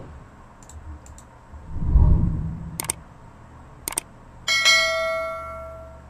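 Sound effects of an animated YouTube subscribe button: a soft low thump, two sharp mouse clicks about a second apart, then a bright bell ding that rings out and fades over the last second and a half.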